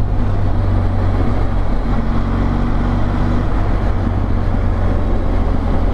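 Benelli TRK 502X motorcycle's parallel-twin engine running steadily while riding, with wind noise over the microphone.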